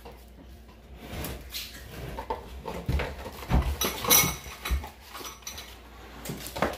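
Tableware and furniture being handled at a wooden dinner table: a few scattered knocks and clinks as a cup and paper plates are set down and a wooden chair is moved, the loudest cluster about four seconds in.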